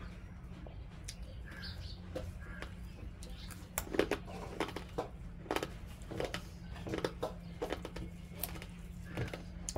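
Close-up mouth sounds of someone eating: wet chewing and lip-smacks that come thicker after a few seconds, over a low steady hum. Brief bird chirps sound in the background.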